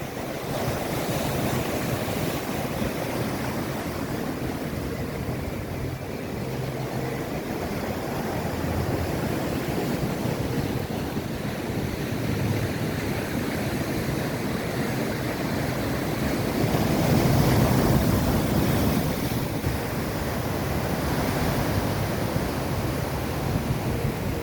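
Ocean surf breaking and washing ashore, a continuous rush that swells to its loudest about two-thirds of the way through, with some wind on the microphone.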